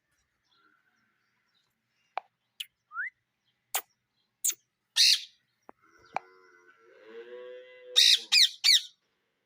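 Parrots calling: scattered short, sharp chirps and squawks, one rising call, then three loud, harsh screeches in quick succession near the end.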